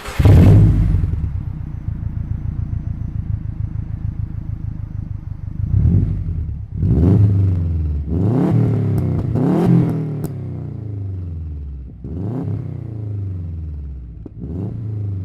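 Subaru Forester XT's 2.5-litre turbocharged flat-four, through a freshly fitted bigger-than-3-inch exhaust with a new back box and the second catalytic converter removed, fires up with a loud flare and settles into a lumpy, pulsing idle. It then gets about six quick throttle blips, each rising and falling back to idle.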